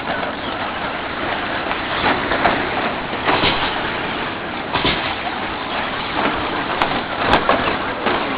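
Radio-controlled short course trucks racing on a dirt track: a steady noisy mix of electric motors and tyres, with several brief louder rushes as the trucks go by.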